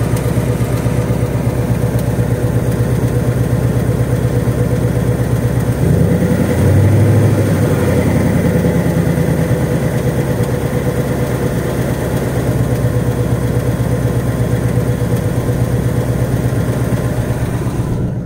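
2018 Ford Mustang GT's 5.0 Coyote V8 idling with a fast, light ticking, the 'typewriter' or 'BBQ' tick that comes and goes, which the owner wonders may be rod knock or piston slap. The engine note swells briefly about six seconds in, then settles back to idle.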